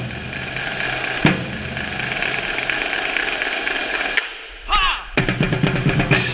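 Marching drumline playing in a gymnasium with crowd noise: a single sharp drum hit about a second in, a brief shout just before the fifth second, then a fast run of drum strokes near the end.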